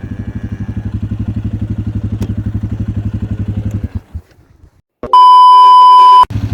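A small engine running with a fast, even putter that cuts out about four seconds in. After a second of near silence comes a loud, steady electronic beep about a second long, and then the engine sound returns.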